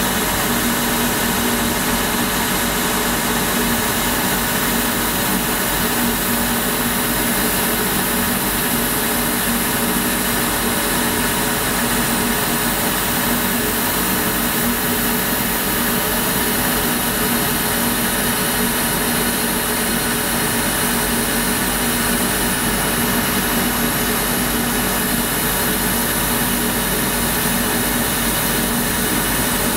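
BF45 CNC milling machine running steadily as its end mill cuts along the edge of a metal plate. The spindle and cut give an even machining noise with steady tones, unbroken and at constant loudness.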